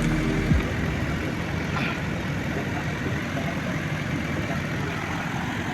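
Backhoe loader engine running steadily at a low rumble. A piece of background music cuts off about half a second in.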